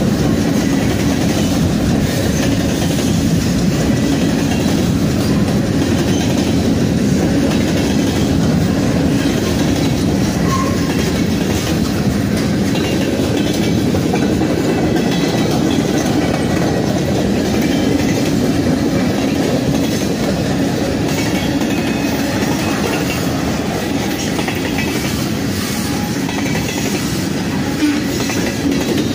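Norfolk Southern mixed freight train's cars (covered hoppers, boxcars, tank cars) rolling past close by: a steady, unbroken noise of steel wheels on the rail.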